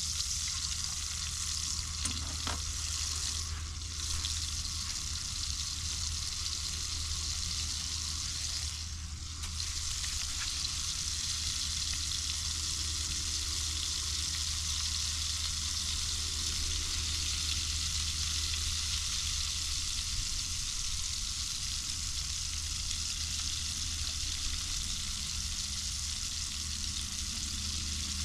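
Redfish fillet pan-frying in oil in a small skillet over a portable propane camp stove, with a steady sizzle.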